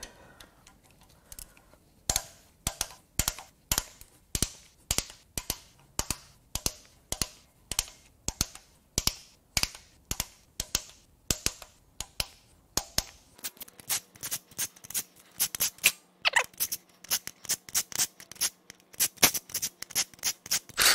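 A long series of sharp metallic clicks, about two a second, from a hand wrench working the bolts loose on a diesel V8's cylinder head. A faint steady hum joins about two-thirds of the way in.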